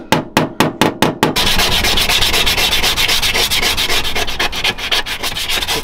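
A small hammer taps quickly on a pickup's sheet-metal inner fender, about five taps a second, knocking down raised spots; after about a second and a half it gives way to steady hand sanding of the painted metal, a fast scratchy rubbing that scuffs the paint so body filler will grip.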